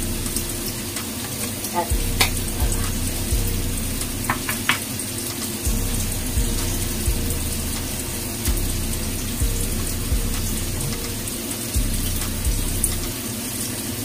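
Tofu sizzling as it fries in hot oil, over a steady low hum, with scattered light clicks and low knocks.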